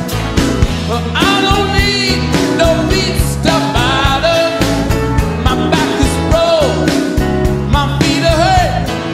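A rock band playing live, with guitar, bass and drums. A man's lead vocal comes in about a second in.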